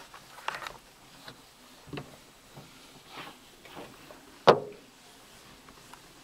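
Small knocks and handling clicks inside a parked car, with one loud, sharp knock a little after the middle that rings briefly.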